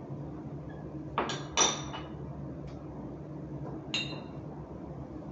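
Hard kitchen utensils knocking and clinking on a work surface: three sharp knocks, two close together near the start and one about four seconds in, each with a short high ring.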